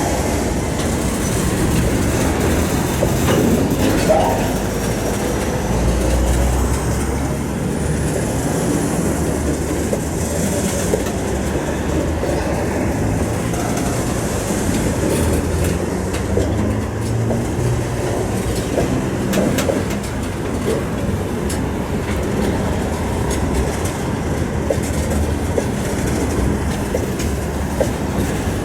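Freight train rolling into a station, its wagon wheels clattering over rail joints in a continuous rumble, with a faint wheel squeal rising about five seconds in.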